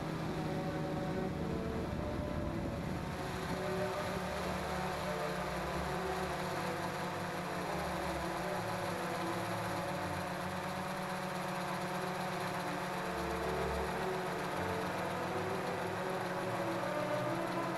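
XK X380 quadcopter's motors and propellers whirring steadily in flight, heard from its own onboard camera, the pitch shifting up and down a little as the motor speeds change.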